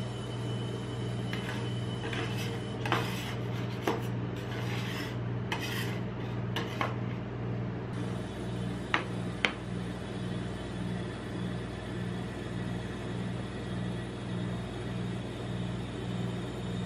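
Metal spatula scraping and clinking across a frozen steel ice cream roll plate for several seconds, then two sharp clicks, over a steady low hum.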